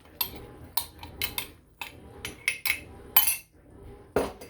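A utensil clinking and knocking against a baking dish while chopped pecans go into flour and melted butter for a pie crust: a string of sharp, irregular clinks, with a heavier knock near the end.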